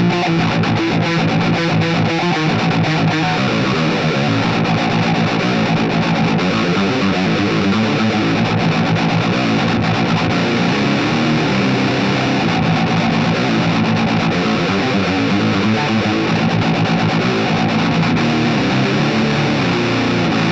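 Electric guitar played through a Harley Benton Crunch Distortion pedal, distorted chords and riffs ringing out continuously.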